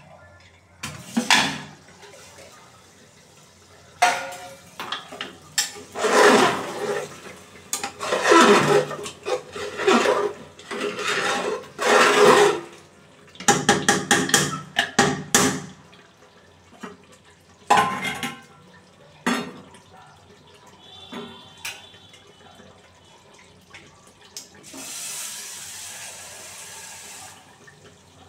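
A metal ladle scrapes and knocks against an aluminium pressure cooker while stirring mutton curry, in irregular clattering strokes, after the cooker lid clanks as it is lifted off. Near the end there is a steady hiss for about three seconds.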